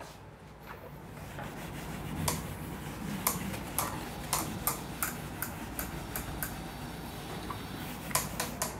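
Handheld whiteboard eraser wiping marker off a whiteboard: a rubbing swish starting about a second in, with short sharp clicks about twice a second as the eraser is pushed back and forth across the board.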